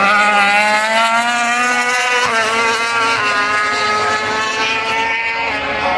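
MotoGP racing motorcycle engine at high revs, a high-pitched wail that climbs and is cut twice by quick gear changes, then holds steady as the bike runs along the straight.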